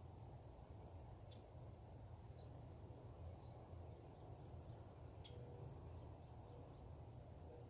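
Faint bird calls: a short chirp, then a brief warbling phrase about two seconds in and another chirp near the middle, over a steady low background rumble.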